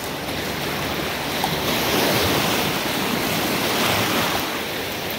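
Small Lake Superior waves washing and lapping steadily onto a sand beach.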